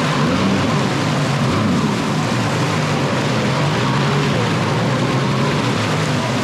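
Jet ski engine running steadily, with its low engine note wavering slightly over a constant rushing noise.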